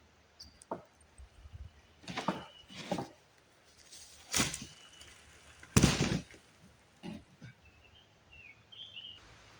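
Irregular knocks and thuds from demolition work on a rotten wooden shed: about six separate blows, the loudest about six seconds in. A small bird chirps faintly near the end.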